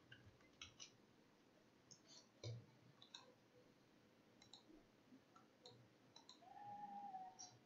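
Faint computer mouse clicks, several scattered singly over near silence, as buttons are clicked through a software dialog. A brief faint hum comes near the end.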